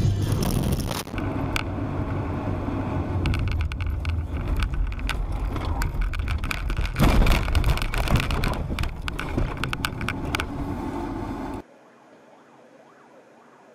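Car driving, heard from inside: engine and road noise with a run of sharp knocks and rattles, loudest about seven seconds in, then cutting off suddenly to a much quieter background near the end.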